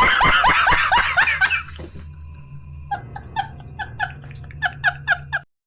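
Two comedy sound effects in a row: first about two seconds of fast, repeated falling laugh-like calls, then a string of about a dozen short, squeaky yelps that cuts off suddenly near the end.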